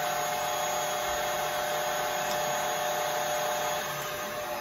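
Tilt-head stand mixer running steadily at high speed with a wire whisk, whipping egg whites into meringue that is still short of stiff peaks. Its motor hum changes and starts to wind down near the end as it is switched off.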